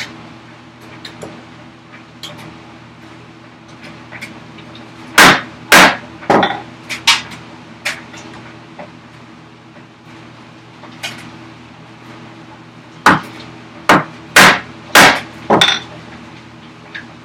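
Chisel driven into a wooden vise chop by sharp hammer blows, about four in quick succession and then, after a pause, about six more, to chop away and split off a waste section. A faint steady hum runs underneath.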